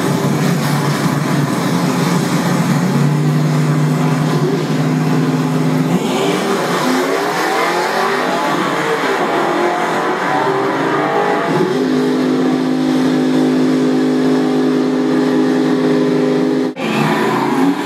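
AMC Rebel drag car's engine held at high revs, then accelerating hard down the strip, its pitch rising and dropping as it goes through the gears before settling on a steady high note. It cuts off suddenly near the end and engine sound picks up again straight after.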